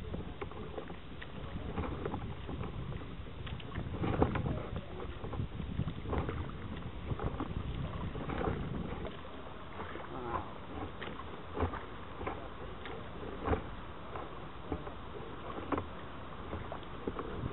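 Kayak paddle strokes on calm water: the blades dip and pull with irregular splashes and drips, the strongest coming every second or two.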